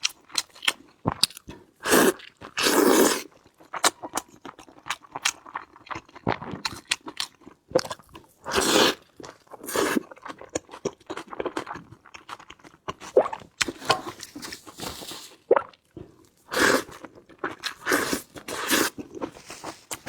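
Close-miked eating sounds: a person biting and chewing crunchy food, with irregular loud crunches and wet chewing.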